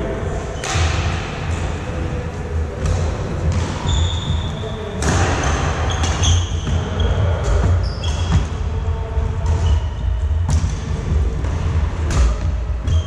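Badminton rally in a large echoing hall: sharp racket strikes on the shuttlecock, sneakers squeaking briefly on the wooden court and footsteps thudding, over a steady low hum.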